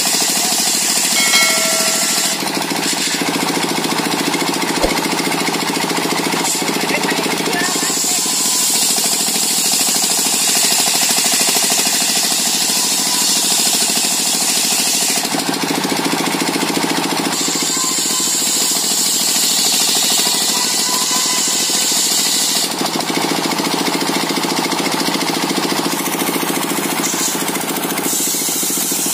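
Circular saw machine (mesin serkel) running continuously, with long stretches of a louder high-pitched saw noise coming and going as the blade cuts through coconut wood.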